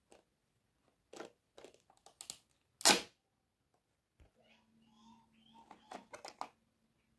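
Hard plastic toy kitchen pieces knocking and clattering as they are picked up and set down: a string of sharp clicks and knocks, the loudest about three seconds in.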